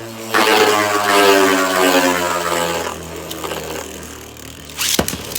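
Two Beyblade spinning tops, a 3D-printed Agèma Ares and a metal Guilty Longinus, whirring and grinding against each other in a stadium. The whirring gets much louder about a third of a second in, then slowly drops in pitch as the tops lose spin. A sharp clack comes near the end.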